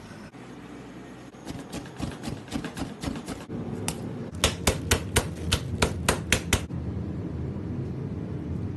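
Sharp knocks and strikes from hands-on preparation of seasoned minced meat: a scattered run of light knocks, then about ten louder, quick strikes in just over two seconds.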